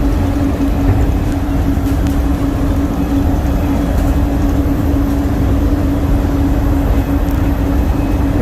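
Inside a DFW Skylink automated people-mover train as it runs along its guideway: a steady low rumble with a constant hum.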